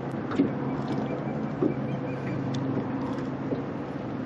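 Boat motor running with a steady low hum, with a few light clicks and knocks over it, the sharpest about half a second in.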